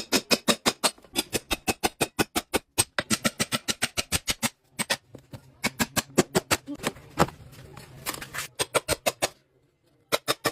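A rapid series of sharp taps or clicks, about six or seven a second, in runs broken by short pauses, with a longer pause near the end.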